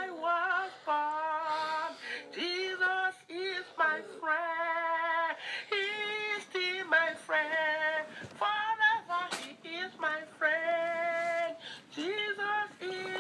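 A woman singing solo with no accompaniment: a worship melody in short phrases of held notes that bend up and down.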